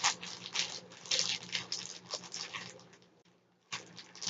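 Glue slime being pulled out of a plastic bag: irregular wet squishing and crinkling, several short bursts a second, which stop about three seconds in.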